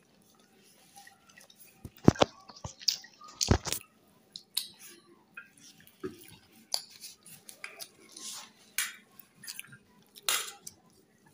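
A hand mixing rice on a plate, with irregular clicks and knocks of fingers against the plate. The loudest knocks come about two and three and a half seconds in.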